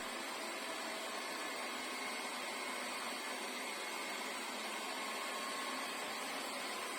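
Lefant M210 Pro robot vacuum cleaner running, a steady even whirring hiss with no change in pitch or level.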